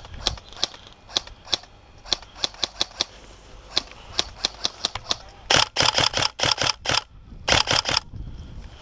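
Tokyo Marui SCAR-L Next Gen airsoft electric rifle firing. A string of single shots comes at uneven spacing, then two short rapid bursts about five and a half and seven and a half seconds in.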